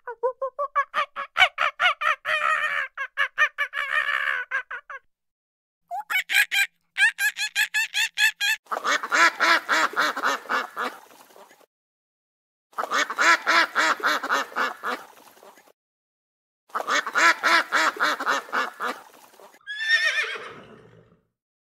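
An animal calling in bursts of rapid, pitched notes, each burst a few seconds long with short pauses between, and a single falling call near the end.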